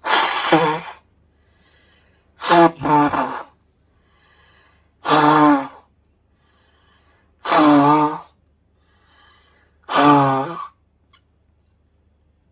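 A woman blowing her nose hard into a tissue: five loud, honking trumpet-like blows about two and a half seconds apart, the second broken into two quick parts, each with a wavering pitched honk.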